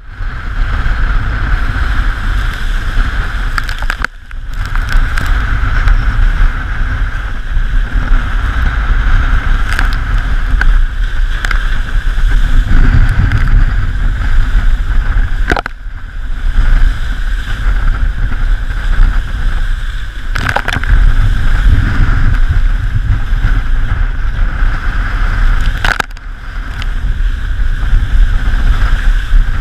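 Wind buffeting the microphone over the rush and hiss of water streaming past the hull of a Kurt Hughes KHSD 24 trimaran sailing fast upwind. The rush dips briefly four times.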